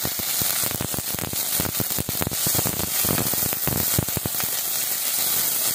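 Chopped onion and green chillies sizzling in hot oil in a steel pan, with many small crackles, as a silicone spatula stirs them.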